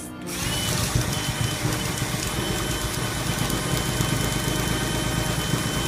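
Cordless drill running at steady speed with a constant whine, spinning an apple skewered on a metal rod while a hand peeler is held against it and strips off the skin. The motor starts just after the opening.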